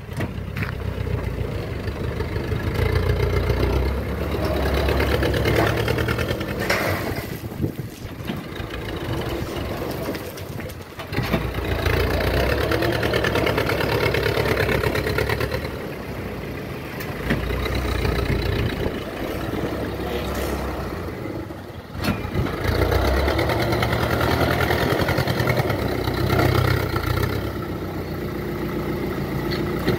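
Old dump truck's engine running and revving up in spells, easing back between them, while the truck backs in and raises its bed to tip a load of gravel.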